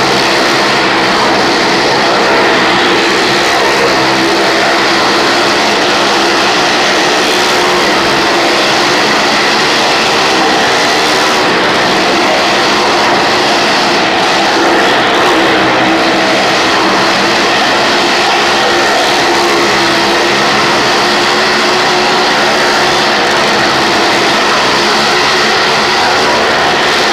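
Motorcycle and car engines running hard at high revs as they circle the steep wooden wall of a well-of-death drum. The noise is loud and unbroken throughout.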